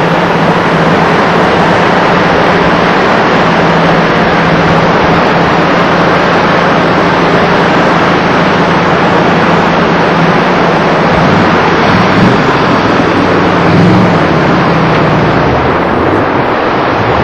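A Jeep's engine running steadily under a loud, continuous rushing of creek water as it crosses the river; the engine note wavers up and down in the second half as it works through the crossing.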